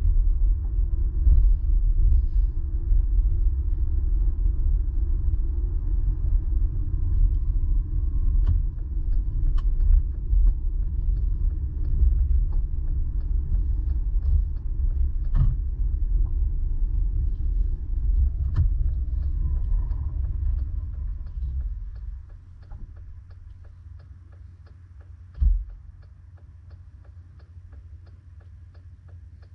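Low, steady rumble of a car driving, heard from inside the cabin, that drops away about 22 seconds in as the car slows to a stop, leaving a much quieter idle. A single low thump comes a few seconds after the stop.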